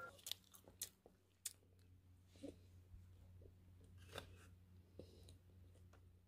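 Faint chewing of a soft burger: a few quiet mouth clicks and smacks over a low room hum.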